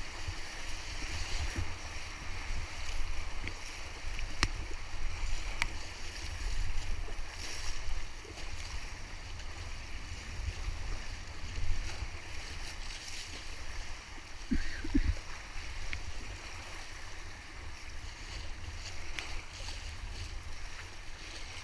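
River rapids rushing and churning around an inflatable kayak, with paddle strokes splashing and water slapping the boat in uneven surges. A heavy low rumble runs underneath, likely wind and water buffeting the camera.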